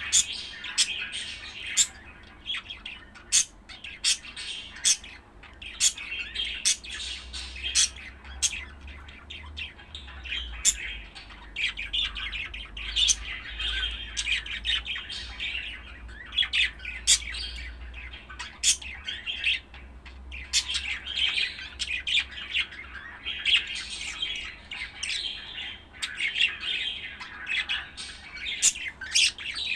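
Budgerigar chattering and warbling without pause, broken by many short, sharp high chirps.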